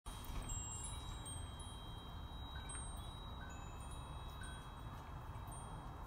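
Wind chime ringing: several high metal tones held and overlapping, with occasional fresh strikes, over a low steady rumble.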